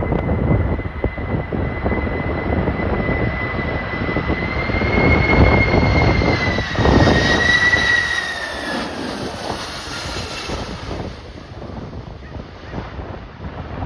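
Jet airliner passing by, its engine whine holding steady, then dropping in pitch and fading from about eight seconds in, over heavy wind buffeting the microphone.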